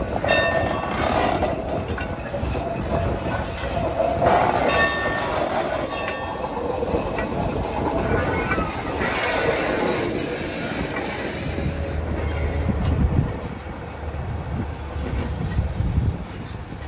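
Train rolling past with continuous rail and wheel noise, with brief high-pitched tones near the start and again about four seconds in; the sound drops off about thirteen seconds in.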